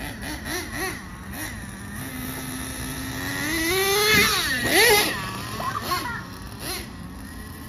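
Glow-fuel engine of an XTM X-Cellerator RC monster truck, running on methanol and castor oil with no nitro. Its revs climb steadily, then drop and rise sharply twice as the throttle is blipped, which is the loudest part, before it settles back.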